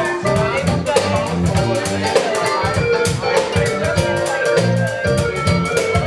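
Live funk band playing: drum kit keeping a busy groove under electric bass and guitar, with a bending melody line on top.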